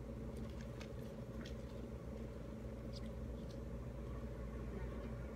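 Faint ticks and crackles of pomelo segments being handled and eaten by hand, over a steady low hum.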